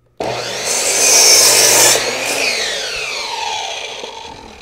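Electric circular saw starting up and cutting through a scrap wooden board, loudest for about the first two seconds. The trigger is then released and the blade spins down with a falling whine.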